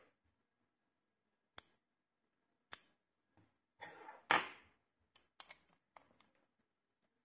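Sharp clicks and a short clatter of hand tools and small metal parts being handled. A screwdriver is picked up and set into an electric scooter's mechanical disc brake caliper. The loudest clatter comes a little past the middle, with lighter clicks after it.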